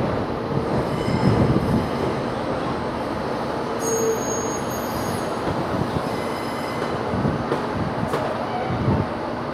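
New York City Subway train running on the tracks with a steady rumble and a few low thuds, moving away. About four seconds in, a high wheel squeal sounds for roughly a second.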